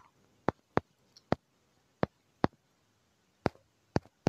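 Fingertip taps on a phone touchscreen: about eight sharp, separate clicks at uneven spacing, with quiet between them.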